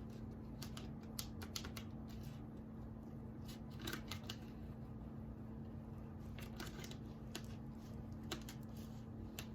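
Soft, scattered clicks and crackles of vinyl lettering and its transfer mask being pressed and worked onto a board by hand, over a steady low hum.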